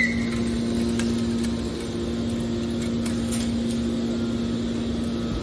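Hydraulic scrap-metal baler's motor and pump running with a steady, even hum.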